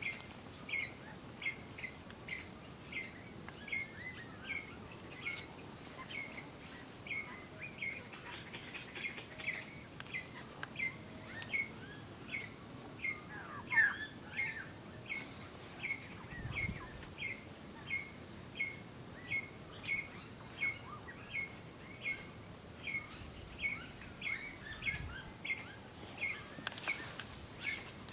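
A bird repeating a short, high chirp steadily, about every half second, with a few other bird calls mixed in, the loudest a falling call about halfway through.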